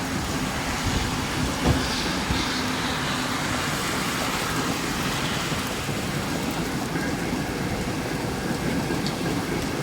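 Steady hiss of heavy rain, with a few short low thumps a little under two seconds in.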